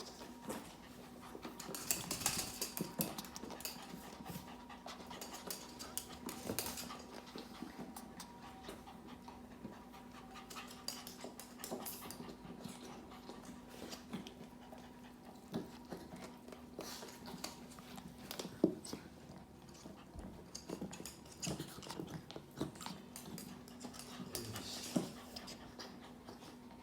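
Small puppies panting, with scattered light clicks and taps throughout and a sharper knock about two-thirds of the way in. A faint steady hum runs underneath.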